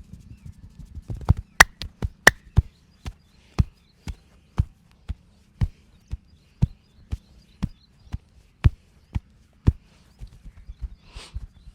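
Massage percussion: hands striking a person's head and body, with a quick uneven flurry of sharp slaps about a second in, then a steady beat of about two strikes a second. A short brushing rub near the end.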